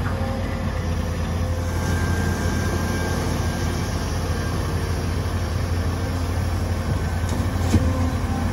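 Heavy diesel machinery engine running steadily, with a single short knock near the end.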